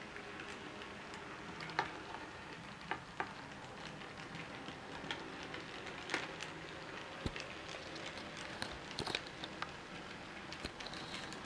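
Irregular light clicks and taps over a steady hiss: a wooden stick poking a model railway locomotive on its track to get it moving again.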